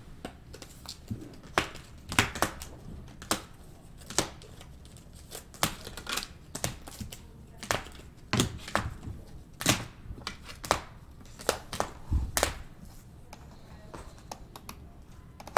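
Trading card packs and box being opened and handled: irregular crinkles, small tears and clicks of wrappers and cards.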